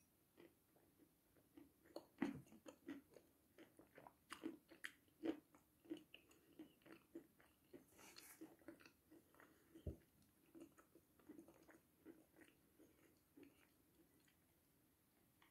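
Close-miked chewing of dry chalk: quiet, irregular crunches and clicks as the chalk breaks between the teeth.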